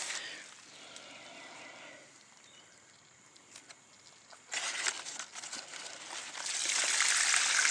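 Water trickling and splashing, faint at first, then coming in about four and a half seconds in and growing louder towards the end, with a few sharp clicks.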